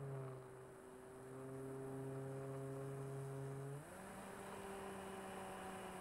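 Electric motor and propeller of an RC Corsair F4U model plane, heard from on board as a steady drone. The pitch steps up quickly about four seconds in, as the throttle is raised.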